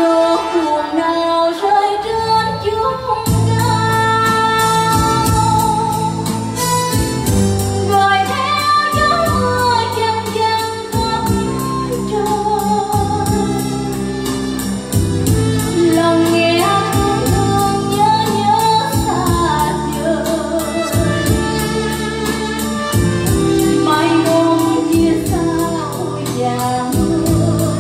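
A singer performing a cải lương (Vietnamese reformed opera) aria with a backing band, heard through the PA. A steady beat comes in about three seconds in.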